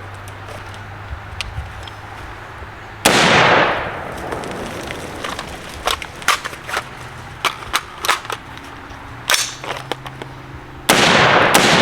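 Gunshots from an HM Defense 5.56 rifle: a loud report about three seconds in and another near the end, each ringing out for nearly a second, with shorter, sharper clicks and cracks in between.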